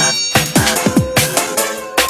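Nokia N91 ringtone: electronic drum-and-bass-style music. A fast beat of punchy kick drums comes in about a third of a second in, under a steady held synth note.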